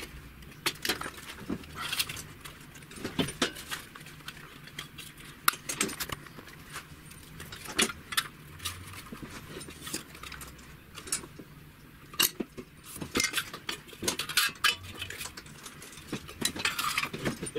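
Light metallic clinks and taps at irregular intervals: thin sheet-metal pieces and a steel square being handled, knocked together and set down on a steel milling-machine table.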